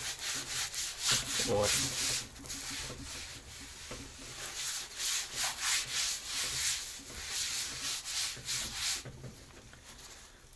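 A wad of paper towel rubbing over the oiled inner surface of a new cast-iron kazan in repeated wiping strokes, wiping off excess oil and factory grime while the pot is seasoned. The rubbing stops about nine seconds in.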